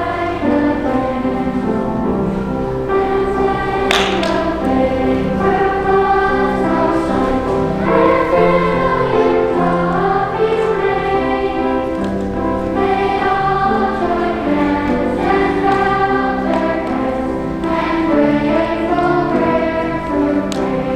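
A choir singing a slow song in held notes, with a brief sharp click about four seconds in.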